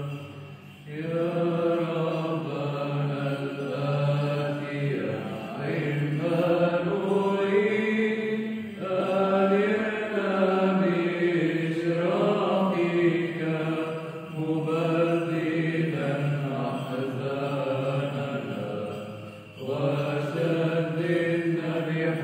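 Byzantine chant sung in Arabic: a chanted melody over a steady held low drone note (the ison), in long phrases with short breaks between them.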